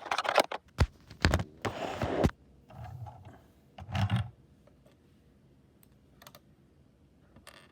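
Hard plastic Lego pieces being handled: a quick run of sharp clicks and clatter with a short rustle, then mostly quiet until one last click near the end.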